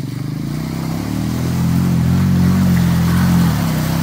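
Honda 350 ATV's single-cylinder engine revving as it drives into a deep mud puddle, its note climbing and getting louder over the first three seconds, then easing off slightly near the end, with water churning around it.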